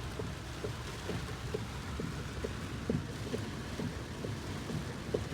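Heavy rain on a moving car, heard from inside the cabin: a steady wash of rain over a low road rumble, with scattered drops striking the car a few times a second.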